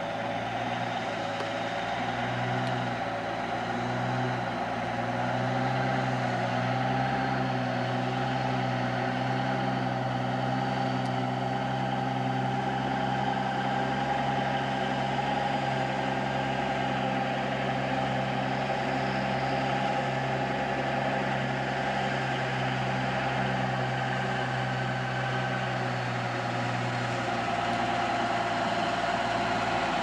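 Truck engine running steadily as a log-loaded truck pulls slowly forward: a steady low hum with a drone above it, growing a little louder over the first few seconds and then holding.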